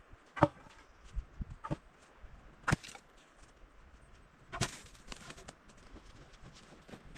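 Four sharp knocks at uneven intervals, like blows or chops, with fainter clicks and handling noises between them.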